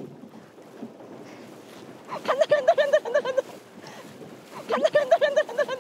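High-pitched laughter in two loud bursts, about two seconds in and again near the end, over a steady splashing of the pedal boat's paddle wheel churning the water and wind on the microphone.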